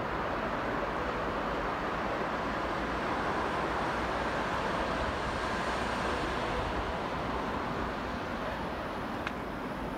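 Steady hum of distant city traffic, an even wash of noise with nothing standing out.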